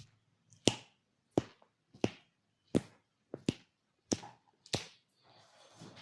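A massaging hand striking the body: seven sharp, evenly spaced slaps, roughly three every two seconds.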